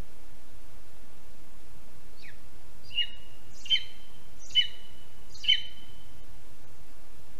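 Lesser spotted eagle calling: a series of five short, high yelps, the first faint, about one a second, beginning about two seconds in. Each yelp drops quickly in pitch.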